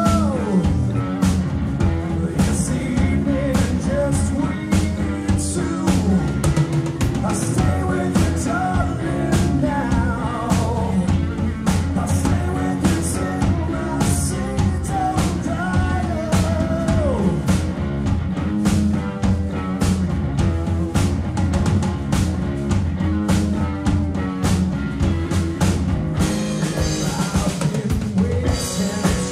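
Live rock band playing: electric guitar, electric bass and drum kit with a steady beat, a melody line wavering above.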